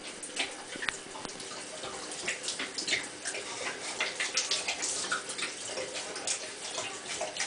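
Great Dane puppy lapping water from a running bathtub spout: an irregular run of quick wet laps and splashes over the trickle of the tap.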